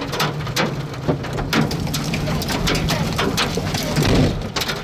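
Rain and hail pelting down, with many irregular sharp hits over a steady low rumble.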